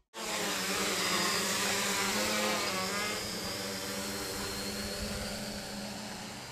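Quadcopter's electric motors and propellers whirring in flight, a steady buzz whose pitch wavers as the throttle changes, gradually getting quieter.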